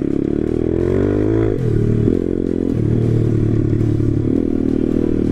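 MRF 140 RC-Z pit bike's single-cylinder four-stroke engine under way on a dirt track: the revs climb for about a second and a half, drop sharply, then pick up and run on at varying revs. The engine is still being run in, with the throttle not opened fully.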